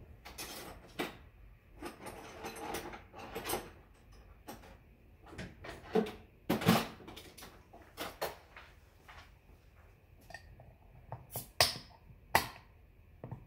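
Kitchen handling noises as a bottle opener is fetched: scattered clinks and knocks with some rustling. The sharpest knocks come about six to seven seconds in and again near the end.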